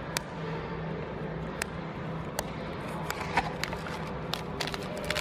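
Trading cards being handled and laid down on a table: scattered light clicks and taps, about one or two a second and a little more frequent near the end, over a steady low background hum.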